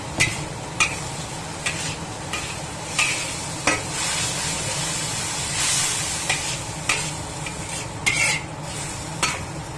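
Metal spatula scraping and knocking against a wok as water spinach is stir-fried, with about a dozen irregular strokes over a steady sizzle. The sizzle swells briefly about halfway through.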